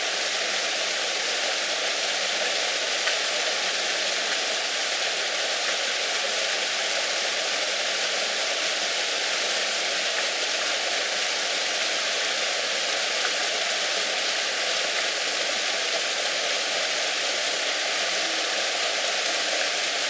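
Steady, even rushing hiss that does not change, like running water.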